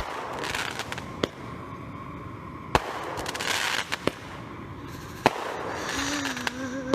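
Consumer fireworks going off: about five sharp bangs roughly a second apart, with crackling hiss between them.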